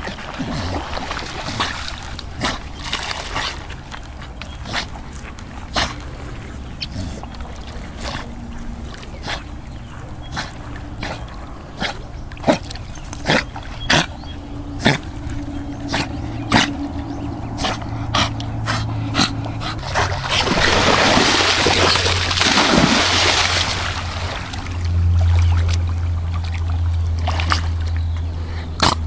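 A Staffordshire bull terrier swimming, the water splashing and sloshing around it in many short sharp splashes, with a louder, longer rush of water noise about two-thirds of the way through and a low rumble near the end.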